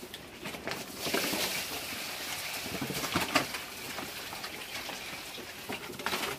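Pigs eating, a rustling, crunching noise with scattered clicks that sets in about a second in and cuts off suddenly near the end.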